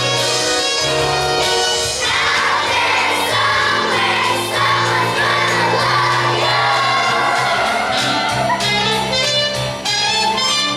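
Group of children singing a musical-theatre number together over instrumental accompaniment. The voices come in about two seconds in, after a short instrumental passage.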